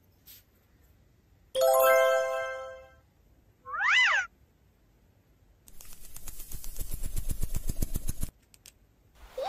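Edited-in sound effects. About a second and a half in, a ringing ding fades over about a second. Then a short meow-like call rises and falls in pitch. Then a fast, even rattling patter runs for about two and a half seconds as green glitter is poured, and cuts off suddenly.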